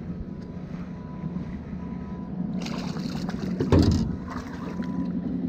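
Steady low hum from the fishing boat, with rustling and a thump about three and a half seconds in as the angler shifts and bends down toward the boat floor; the thump is the loudest moment.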